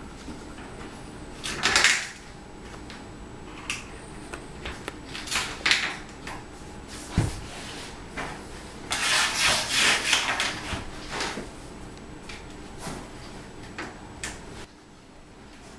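Intermittent clicks, knocks and short scrapes as large porcelain floor tiles are set and Tornado tile-leveling straps and plastic collars are fitted at the joints, with a longer scraping rustle about nine seconds in.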